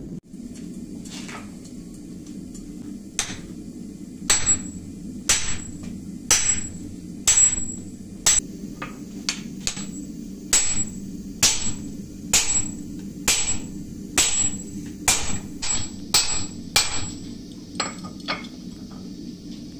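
Hand hammer striking red-hot steel on an anvil, forging out a blade blank cut from an old railway locomotive bearing. The blows begin about three seconds in and come about once a second, each with a short bright ring, over a steady low hum.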